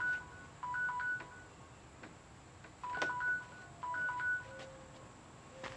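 Electronic timer beeping: short beeps at two alternating pitches, a lower and a higher one, in four quick clusters. A faint click near the end.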